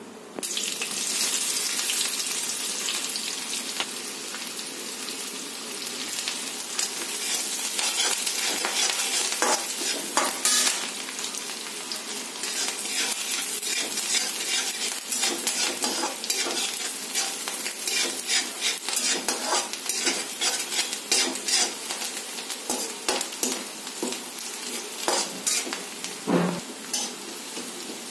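Chopped onions dropped into hot oil in a steel kadai, the sizzle jumping up suddenly as they go in, then frying steadily while a slotted metal spoon stirs them, scraping and clicking against the pan many times.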